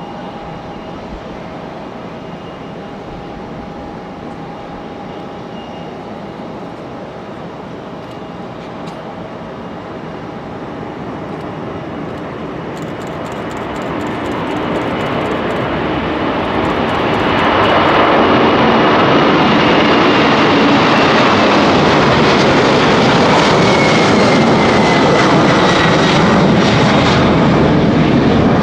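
Boeing 747-400 jet engines during takeoff: steady engine noise with thin high tones, growing louder from about ten seconds in and swelling to a loud, even roar about two-thirds of the way through as the jet comes by, with a high tone then falling in pitch.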